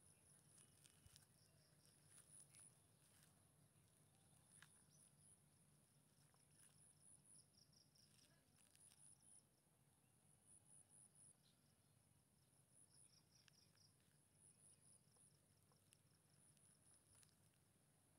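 Near silence, with faint high insect chirping in short pulsed groups repeating every second or so.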